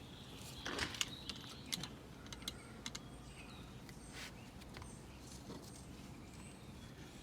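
Faint, irregular clicks and taps of spline being pressed into a window screen frame's groove while the screen mesh is stretched and handled, loudest about a second in.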